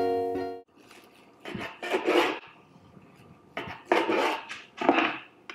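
Serrated knife sawing through a roasted chicken breast on a wooden cutting board, in three sawing strokes, the first about one and a half seconds in.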